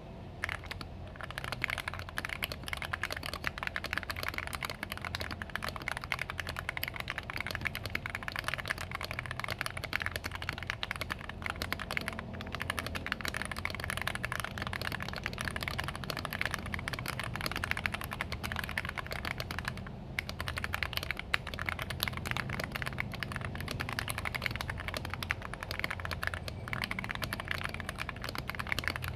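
Mechanical keyboard, an Akko ACR64 with lubed Akko Jelly Pink linear switches, tape mod and PE foam mod, typed on fast and continuously, with a brief pause about twelve seconds in and again near twenty. The keystrokes have the muted, 'creamy, poppy' sound these mods are meant to give.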